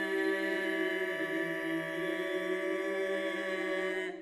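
Men's choir singing a cappella, holding one long chord while a low voice steps down about a second in. The chord is cut off together near the end, leaving a short hall reverberation.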